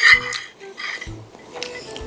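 Cutlery clinking against a plate once or twice at the very start, over quieter background music.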